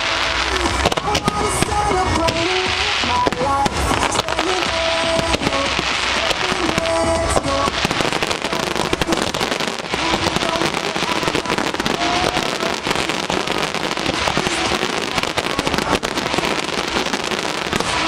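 Aerial fireworks bursting and crackling in a dense, rapid barrage of bangs. Music plays under the bursts for the first half, then gives way to an unbroken crackle about eight seconds in.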